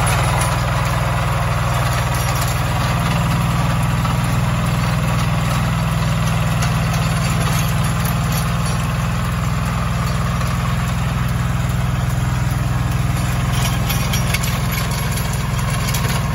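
Agrale 4118 compact tractor's diesel engine running steadily under load while it drives a rear rotary tiller churning through the soil.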